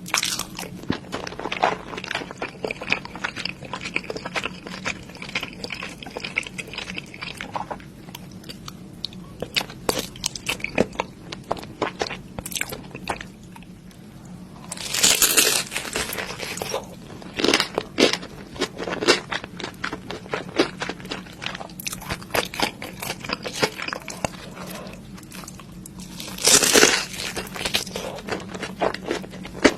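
Close-miked eating of spicy Korean noodles: steady chewing and biting with many small crunchy, wet clicks, and two louder slurps of about a second each, one about halfway through and one near the end.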